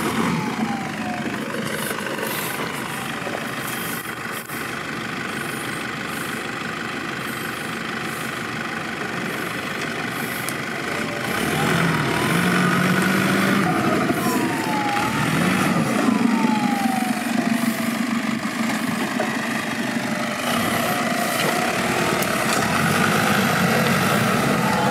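Off-road 4x4 engine running steadily, then revving harder about halfway through, its pitch repeatedly rising and dropping away as the throttle is worked.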